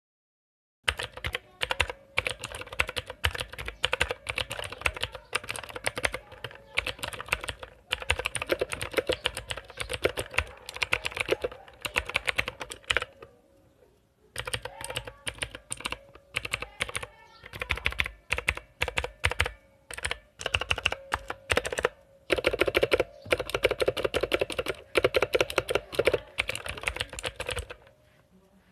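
Typing on a Zeta 61 Pro mechanical keyboard with clicky switches: rapid runs of sharp keystroke clicks in bursts, with a short pause about halfway through.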